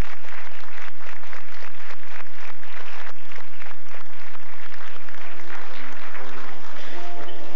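Audience applauding, the clapping thinning out about five seconds in as music with clear, separate notes starts up and grows louder.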